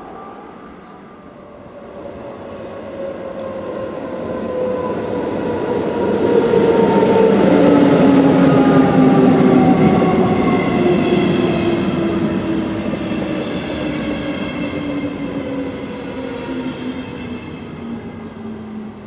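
Electric train passing through the station. It grows louder to a peak midway and then fades, with a whine of several tones that falls steadily in pitch.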